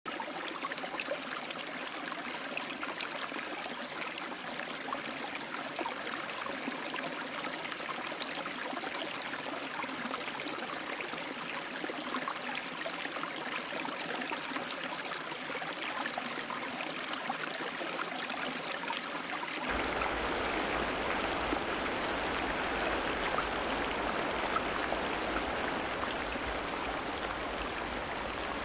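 Steady rush of running water in an otter exhibit pool. About two-thirds of the way through it changes abruptly to a louder, deeper rush.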